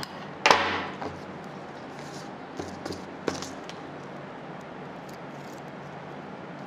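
Scissors cutting a scrap of glittery craft foam: one louder snip about half a second in, then a few faint clicks and handling of the pieces over a low room hum.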